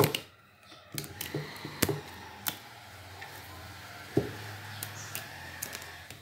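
Black rubber band being unwound by hand from a wooden gluing form, with scattered sharp taps and snaps as the band slips and slaps against the wood, over a faint steady hum.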